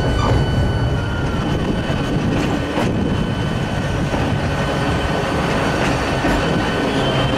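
Narrow-gauge electric train of the Genova–Casella railway running along the track: a steady rumble with a high steady whine over it and a few clacks over rail joints.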